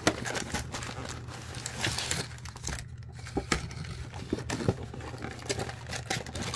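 Cardboard hockey card mega box being handled and emptied: rustling and crinkling of the card packs' wrappers, with scattered small taps and scrapes of cardboard.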